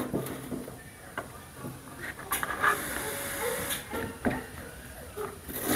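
Chef's knife slicing an onion on a plastic cutting board: irregular taps of the blade hitting the board, about one every half second to a second, over a faint steady hiss.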